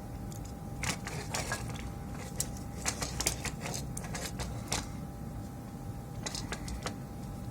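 Irregular small clicks and taps, in short clusters, of hand tools against a PS5 controller's circuit board and plastic shell during desoldering, over a faint steady hum.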